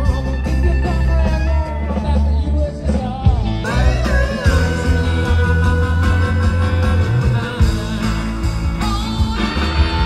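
Rock music with a singer, electric guitar and a heavy bass line, with a long held note in the middle.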